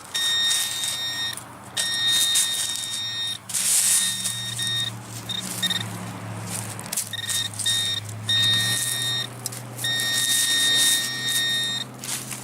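A handheld metal-detector pinpointer buzzing with a steady high tone in on-off stretches of one to two seconds as it is probed through the dirt, signalling metal in the hole. Under it comes the scrape and crunch of digging in soil and roots.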